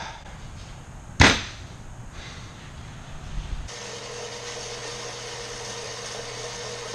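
One sharp knock about a second in. From about four seconds in, a steady mechanical hum with a low, even tone.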